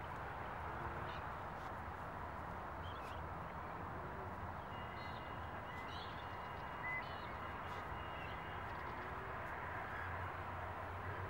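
Steady outdoor background hiss with a few faint, short bird chirps and a brief thin whistle in the middle.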